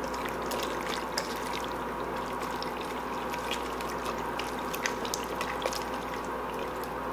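Orange plastic spatula stirring penne pasta through a thick sauce in a pot: wet squelching with many small scattered clicks.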